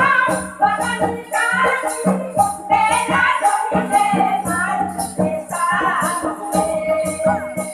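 Folk dance music: singing over a steady, even beat of drum and shaker-like percussion.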